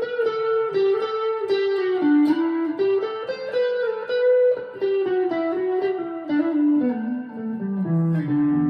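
Chapman ML3 Pro Thinline electric guitar played on its P90 pickup with a smooth tone: a quick single-note melodic run of picked notes that steps downward near the end and settles on held notes.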